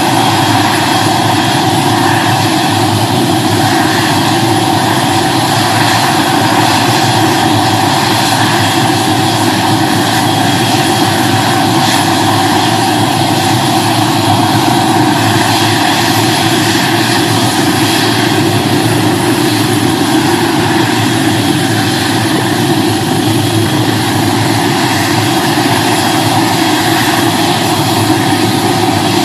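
Helicopter running on the ground, its turbine engine and rotors making a loud, steady rush with a steady whine over it.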